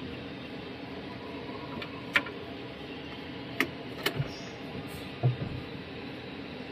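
A few sharp clicks and light knocks over a steady low hum in the cab of an Iveco Stralis truck, as the ignition is switched on and the instrument cluster powers up and runs its system check; the engine is not running.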